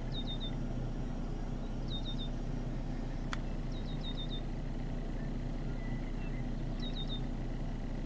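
A vehicle engine idles steadily as a low hum. Over it a bird gives quick groups of three to five short, high, falling chirps every couple of seconds. A single sharp click comes a little over three seconds in.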